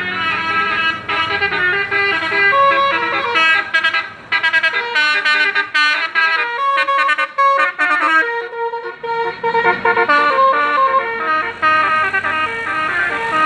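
A bus's multi-tone 'basuri' telolet horn playing a tune: a continuous string of pitched notes stepping up and down, with the lower notes dropping out briefly a little past the middle.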